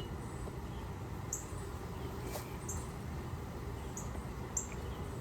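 Low, steady hum of honeybees from an open hive, with about five short, high-pitched chirps at irregular intervals over it.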